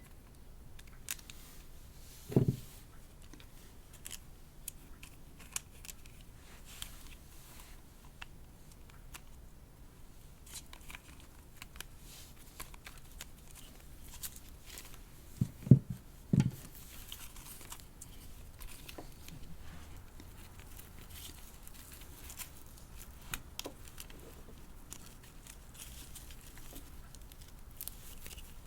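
Hands handling a doll and its packaging: small sharp clicks and faint rustling, with a dull knock about two and a half seconds in and two louder knocks close together near the middle.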